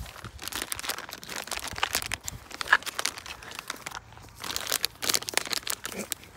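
Plastic wrapping on a pack of firecrackers crinkling and tearing as it is handled and opened, a dense run of irregular sharp crackles.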